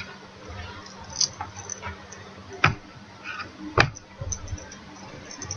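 Cross-stitch fabric being handled and folded: soft cloth rustling and small ticks, with two light knocks about a second apart midway.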